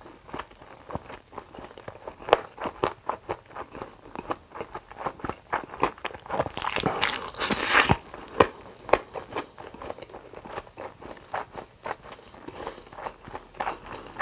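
Close-miked eating: a quick run of bites, crunches and wet chewing clicks. About halfway through comes one louder rushing noise lasting a little over a second.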